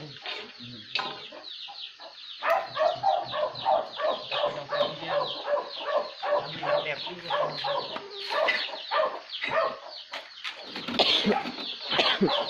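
Chickens clucking: a quick, continuous run of short calls, several a second, louder from a couple of seconds in.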